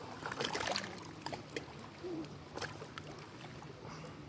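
Small waves lapping and splashing at a lake shore, a string of short irregular splashes over a steady watery wash, with a faint low hum underneath.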